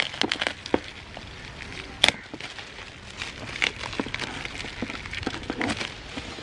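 Shiny metallic foil gift wrap crinkling and crackling as it is picked at and pulled off a cardboard gift box, with one sharper crackle about two seconds in.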